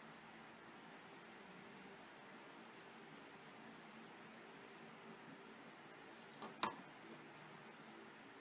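Faint scratching of a white Prismacolor colored pencil stroking across sanded UART paper in short repeated strokes. A single sharp click a little past six seconds in.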